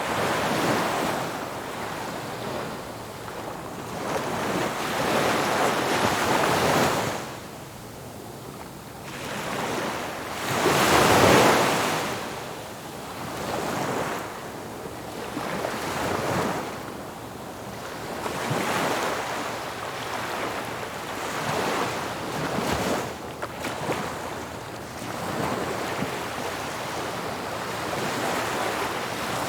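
Ocean waves breaking and washing on a shore, surging and receding every few seconds, with the largest wave crashing about eleven seconds in.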